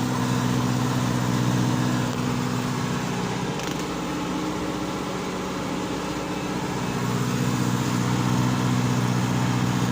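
John Deere tractor's diesel engine running steadily, easing off a little in loudness for a few seconds in the middle and coming back up near the end.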